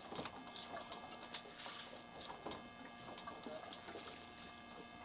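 Faint sea water sloshing at the boat's side, with scattered small splashes and clicks, as a hooked fish is brought up alongside.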